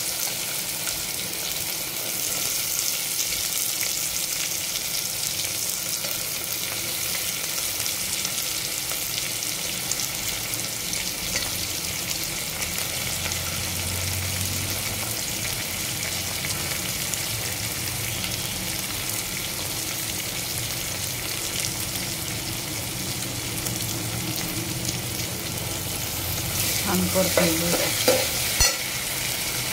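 Sliced onions sizzling steadily in hot oil in an aluminium pot. Near the end a metal spatula clatters and scrapes against the pot as the onions are stirred.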